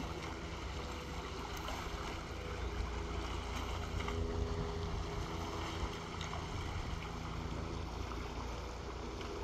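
Muddy water running steadily through a breach in a beaver dam, with wind rumbling on the microphone.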